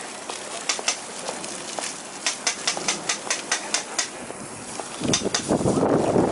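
Metal kitchen tongs clicking over a steady hiss of food sizzling on a hot grill, the clacks coming about four or five a second through the middle. About five seconds in, a louder rough rushing noise sets in.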